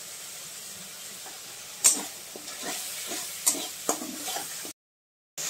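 Spice paste sizzling in hot oil in a metal kadhai, with a flat metal spatula scraping and stirring it in a series of strokes from about two seconds in. The sound drops out for about half a second near the end.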